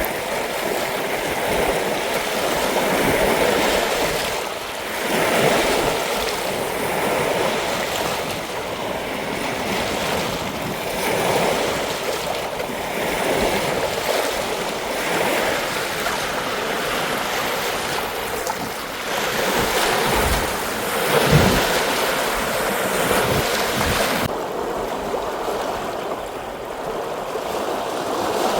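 Wind-driven lake waves washing in a continuous rushing wash that swells and eases every second or two, almost ocean-like in the high wind. In the later part, gusts of wind rumble on the microphone.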